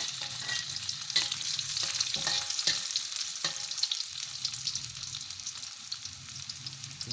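Shallots and garlic sizzling in hot oil in a pan, stirred with a spatula that knocks against the pan several times.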